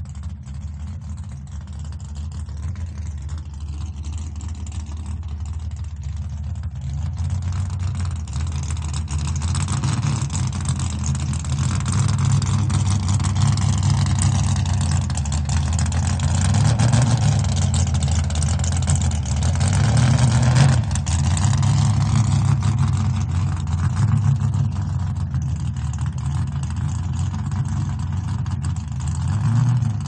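A cart being pulled along a floor, its wheels rolling with a steady low rumble that grows louder over the first ten seconds or so, then holds with small rises and falls.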